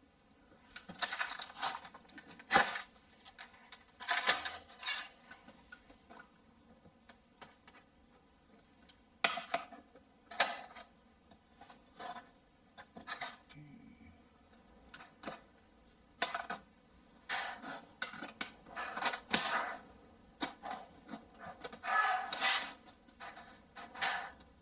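Intermittent handling noises of a spirit level and a mesh patch being held and positioned against a plasterboard wall: short rustles and scrapes with a few light clicks and knocks, separated by quiet gaps.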